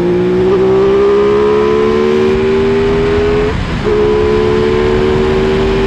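Aprilia Tuono 660's parallel-twin engine pulling under acceleration, its pitch climbing slowly, then a brief break about three and a half seconds in as it shifts up before it runs on steadily. Low wind rumble on the microphone underneath.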